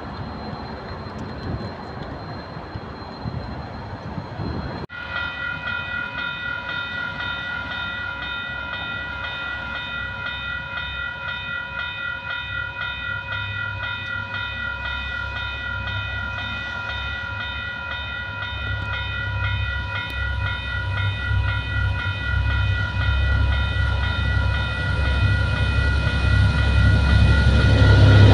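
Level crossing bells ringing steadily while diesel locomotives DFM 7226 and DC 4323 approach, their engine rumble growing louder through the second half. The first few seconds are different: a locomotive moving through the station yard.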